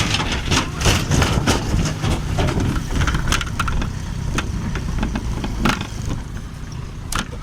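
An engine running steadily at a low rumble, with many sharp knocks and rattles over it.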